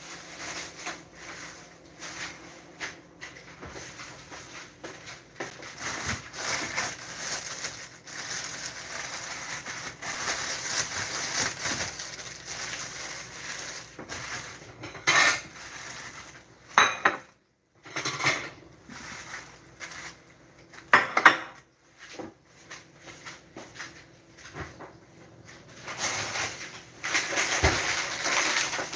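Kitchen clatter: dishes and utensils knocking and clinking on a counter, with several sharper clatters partway through.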